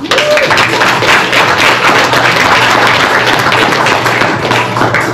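Audience applauding, starting suddenly and going on at a steady, loud level.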